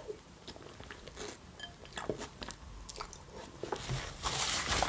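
Close-miked eating sounds: a person chewing a mouthful, with scattered small wet mouth clicks, then a denser crackling chew near the end.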